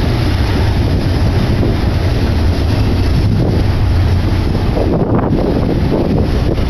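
Heavy wind buffeting the microphone over the steady low rumble of a BNSF intermodal freight train going by.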